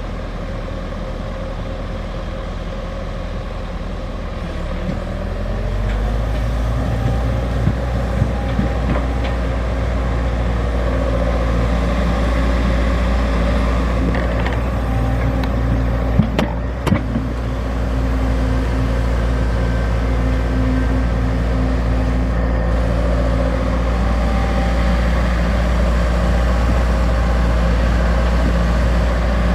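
XCMG XE75G excavator's diesel engine running under load while digging. It rises to a higher, louder steady note about five seconds in, with a few short clanks soon after and a sharper knock about halfway through.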